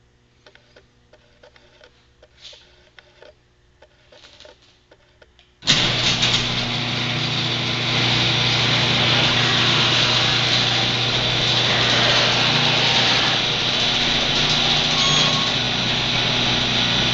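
Automatic garage door opener's motor and drive starting suddenly about six seconds in and then running steadily, a loud mechanical whir over a low hum, as it moves the door. A few faint clicks come before it.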